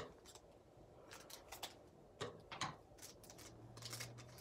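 Trading cards and a foil booster pack being handled: a handful of faint, short rustles and clicks, scattered irregularly.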